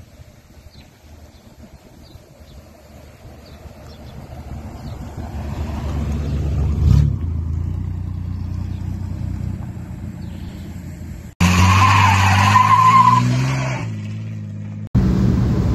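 Vintage hot-rod pickup truck's engine running louder and louder as the truck approaches and passes. After a cut it revs up hard with rising pitch as it accelerates away, with a tire squeal.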